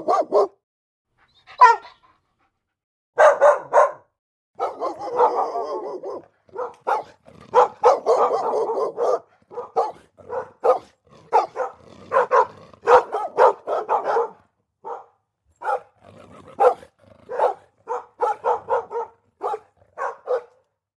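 Dogs barking in repeated bursts of short barks, some in quick runs, with brief pauses between.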